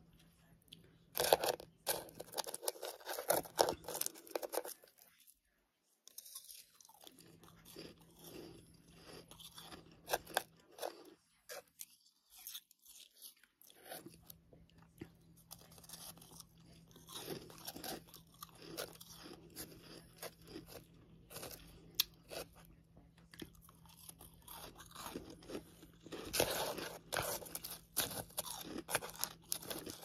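Close-miked crunching and chewing of freezer and humidifier frost (soft ice shavings) in the mouth. It is loud in the first few seconds and again near the end, with quieter chewing between, over a faint steady low hum.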